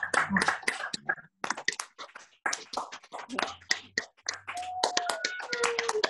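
Many people clapping their hands, a dense irregular patter of claps heard over a video call, with the sound dropping out briefly a couple of times.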